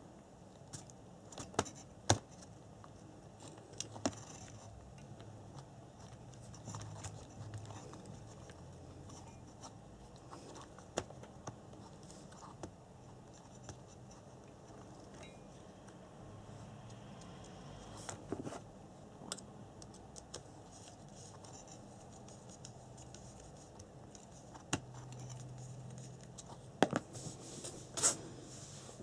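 Hands handling a radio-control buggy's parts: scattered small clicks, taps and scratches of plastic and metal, the sharpest a couple of seconds in and near the end.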